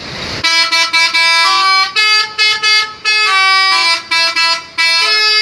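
A PO Haryanto bus's 'telolet' multi-tone musical air horn playing a loud tune of stepped notes in short phrases with brief breaks between them, opening with a short hiss of air.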